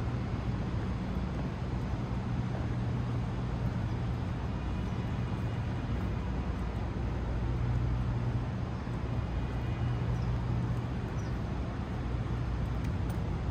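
City street traffic: a steady low engine hum under a constant hiss, with a faint high whine twice.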